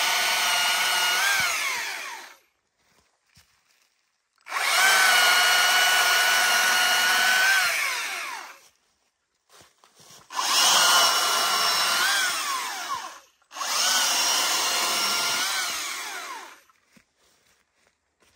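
Stihl MSA 300 battery chainsaw on its second power setting, cutting dry wood in four runs of a few seconds each, with near silence between. Each run ends with a brief rise in pitch and then a falling whine as the electric motor winds down.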